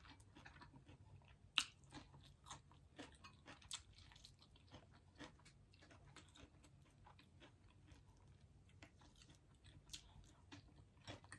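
Faint close-up chewing and crunching of salad greens and sautéed shishito peppers, with many small irregular clicks and one sharper click about one and a half seconds in.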